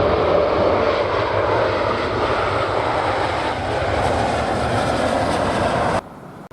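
Airbus A330-300 jet airliner on its landing, the steady noise of its engines and rushing air. It stops abruptly about six seconds in, giving way to much quieter background.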